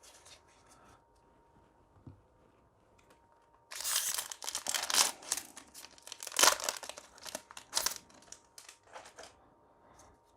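Foil booster-pack wrapper crinkling and tearing as it is opened by hand, in a dense run of crackles that starts about a third of the way in and lasts some four seconds, with lighter handling clicks around it.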